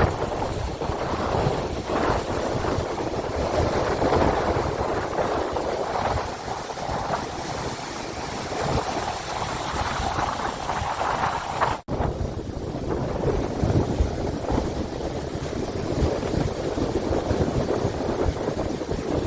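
Lake surf rolling and breaking on a sandy beach, with strong wind gusting and buffeting the microphone. The sound drops out sharply for an instant about two-thirds of the way through, then the surf and wind go on.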